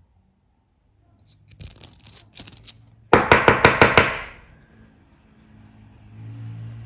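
A few light clicks, then a fast run of about eight sharp hard taps in a second, ringing briefly after, followed by a faint low hum.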